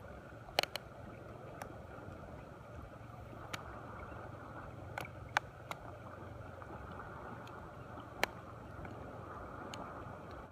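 Faint, steady wash of wind and sea water, with a handful of short, sharp clicks at irregular times.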